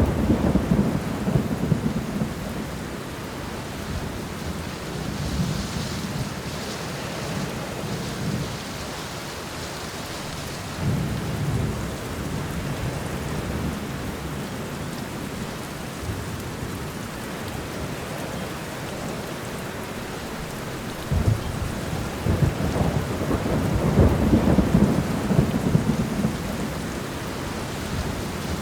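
Steady rain falling in a forest during a thunderstorm, with rolls of thunder rumbling through it. A sharp crack about two-thirds of the way in builds into the longest, loudest roll near the end.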